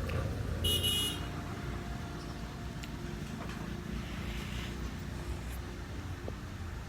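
Steady low background rumble, with a brief high-pitched squeak a little under a second in.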